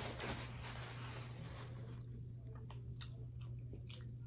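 A paper napkin rustles for about two seconds, then come soft eating sounds: chewing and small clicks of a plastic fork. A steady low electrical hum runs underneath.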